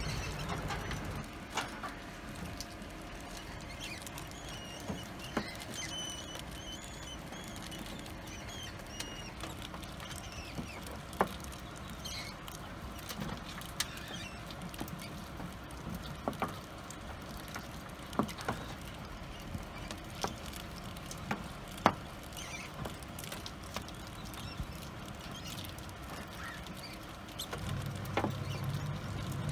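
Mice scurrying and rustling through wood-shaving bedding, with scattered sharp little taps and clicks, and faint high-pitched squeaks in the first several seconds.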